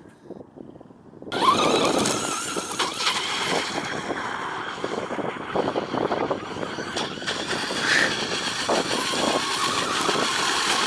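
Brushless electric motor of an FTX Carnage RC truck whining as it drives, with its paddle tyres churning and spraying water. The sound starts abruptly about a second in and runs on loud.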